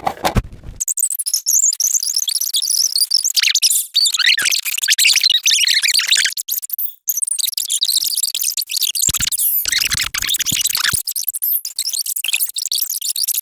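A rapid, dense jumble of shrill chirps, squeaks and beeping tones: free sound-effect clips strung end to end and played at ten times speed, so each effect lasts only a fraction of a second.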